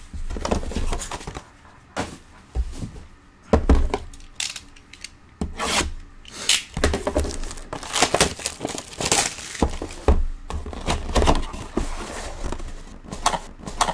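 Cardboard trading-card box and cards being handled: irregular rustling, scraping and light knocks as the box flap is pulled open and its contents are slid about.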